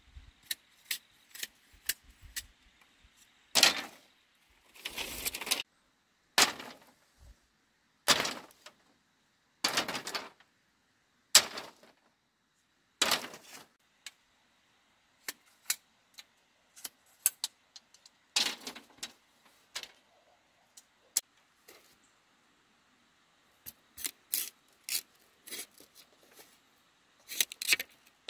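Hand work on bamboo: knocks and short scraping strokes, roughly one every one to two seconds, with light clicks in between.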